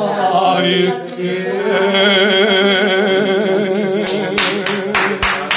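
A man singing a Serbian folk song unaccompanied, the voice wavering with heavy vibrato. About four seconds in, hand clapping breaks out, sharp claps about four a second.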